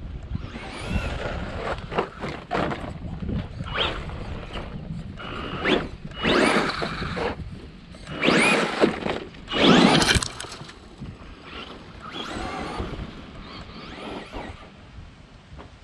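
RC truck's motor whining, rising and falling in pitch as it accelerates and slows across loose dirt, with its tyres scrabbling through the dirt. The loudest passes come about six seconds in and again around nine to ten seconds.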